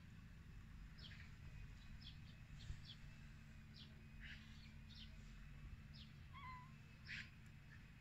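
Faint birds chirping: short, high calls every second or so, with a brief whistled note about six seconds in, over a steady low background rumble.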